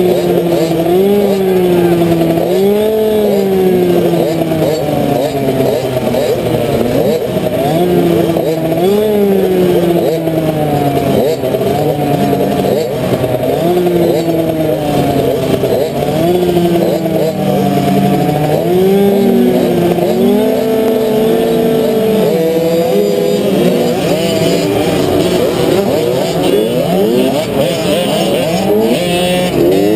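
Small two-stroke motocross bike racing, its engine repeatedly climbing in pitch under throttle and dropping back every couple of seconds. Other bike engines join in during the last several seconds.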